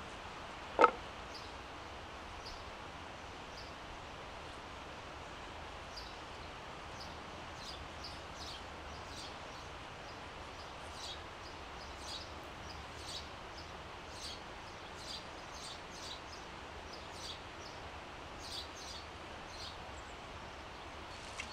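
Knife blade shaving curls off a split dry stick to make a feather stick: short high scraping strokes, roughly one a second, after a single sharp knock about a second in.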